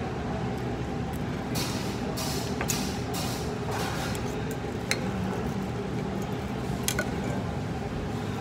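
Steak knife and fork cutting steak on a plate: a few scraping strokes in the first half and a couple of sharp clinks of metal on the plate later, over a steady low background hum.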